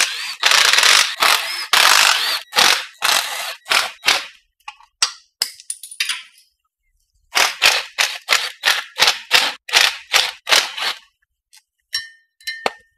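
Cordless impact wrench run in short trigger bursts, undoing bolts on the underside of the car. The bursts come close together for the first few seconds, stop briefly, then come again at about four a second, with a few clicks near the end.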